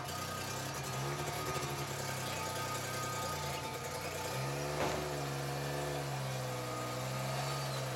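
Rock crawler's engine running at a low speed, picking up revs about four and a half seconds in, holding there, then settling back near the end, with a single short knock just after the revs rise.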